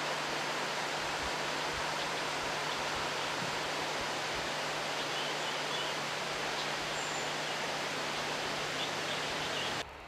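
Steady rushing outdoor background noise with a faint low hum beneath and a few faint, brief high bird chirps. It drops abruptly to quieter ambience near the end.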